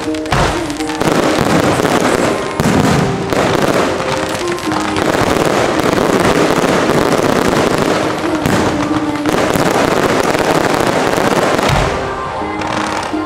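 A dense, near-continuous barrage of fireworks bursts, with music playing underneath. The bursts thin out near the end.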